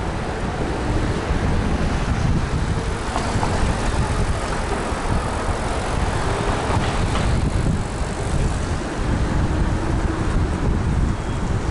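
Steady wind and road rumble from riding an electric kick scooter along a city street, with car traffic around it.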